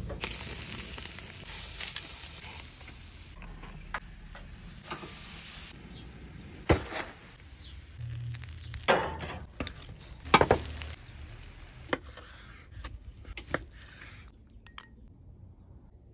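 Bone-in ribeye steak sizzling on the hot grate of a gas grill's infrared side burner for about the first six seconds. Then a handful of separate sharp knocks and clatters follow, the loudest about ten seconds in.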